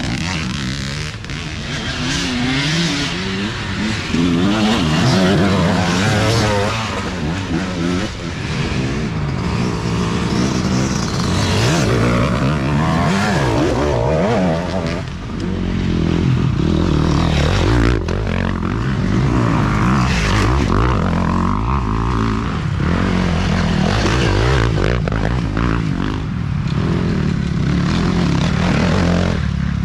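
Off-road dirt bike engines being ridden hard along a rough trail, the engine pitch rising and falling again and again with the throttle and gear changes.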